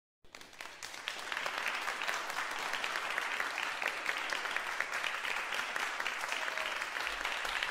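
Applause from many clapping hands, starting suddenly out of dead silence and holding steady as a dense patter.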